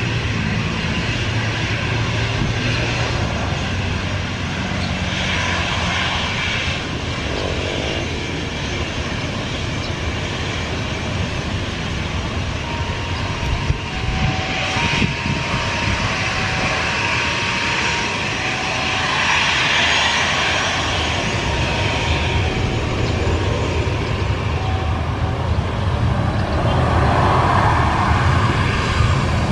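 Boeing 737-800's twin jet engines running at low thrust as the airliner taxis and turns on the runway: a steady jet rumble and hiss that grows louder near the end.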